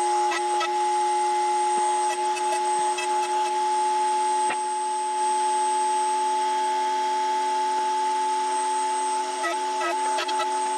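Table-mounted router running at full speed with a steady high whine; near the end the pitch wavers briefly as a workpiece is fed into the bit.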